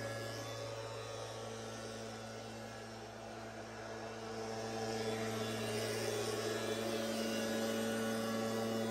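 A motor running with a steady low hum, getting louder about five seconds in.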